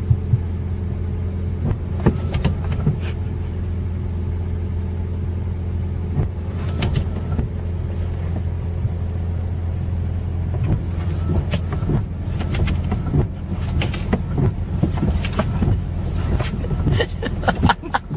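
A steady low mechanical hum with scattered light clicks and rustles over it.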